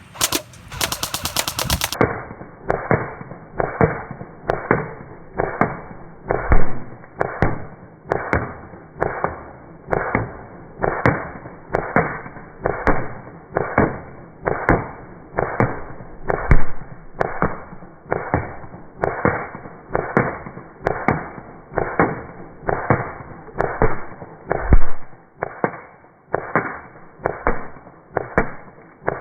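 Airsoft gun fire and BB impacts slowed down for slow motion. A quick rattle of clicks opens the stretch, then a long run of deep, evenly spaced thuds comes a little more than once a second.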